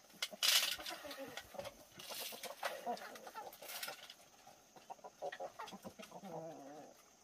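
Chickens clucking, with a drawn-out wavering call near the end and three short bursts of scuffling noise in the first four seconds.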